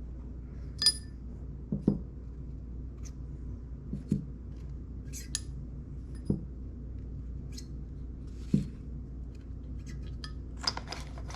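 Light metallic clinks and taps, scattered irregularly every second or so, as steel valves are slid out of a 3800 V6 cylinder head and set down.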